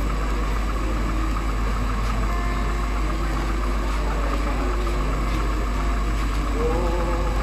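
Mixed choir singing slow, sustained chords, with a somewhat stronger held chord near the end. A loud, steady low hum runs under the singing throughout.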